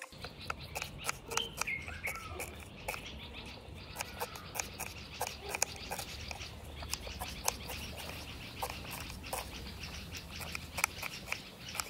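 Chef's knife chopping and dicing an onion on a wooden cutting board: irregular sharp taps of the blade striking the board, several a second.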